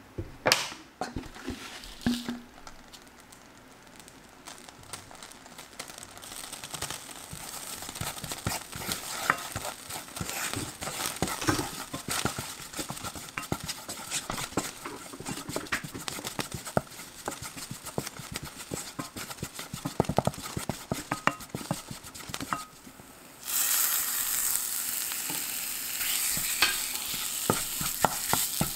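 Sesame oil and chili powder frying gently in a nonstick pan while a wooden spatula scrapes and stirs, a fine crackle dotted with clicks; a few sharp knocks come in the first couple of seconds. About 23 seconds in, minced pork goes into the pan and the frying jumps to a much louder, steady sizzle.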